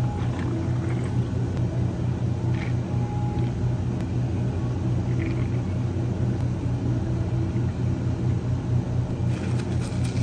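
Steady low machine hum, with a few faint light ticks and clinks over it.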